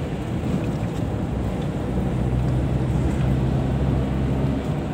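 A car's engine and tyre noise, heard from inside the cabin while driving: a steady low drone with road and wind hiss.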